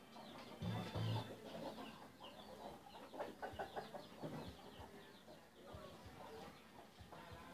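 Faint bird-like calls: a couple of short low calls about a second in, then scattered small chirps.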